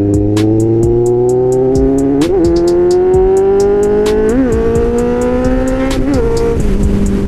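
Kawasaki Z750 inline-four motorcycle engine through an aftermarket SC Project-style exhaust, pulling under way with its pitch slowly climbing. There are short wobbles in the note about two, four and six seconds in, and it settles to a steady note near the end.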